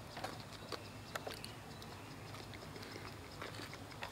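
Faint, scattered little clicks and smacks of a man sipping and sucking water from a plastic water sachet.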